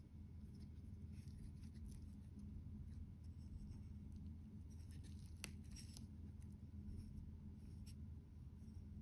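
Faint handling noise: fingers rubbing and shifting a wristwatch and its cushioned presentation box, with a small click a little past the middle, over a low steady room hum.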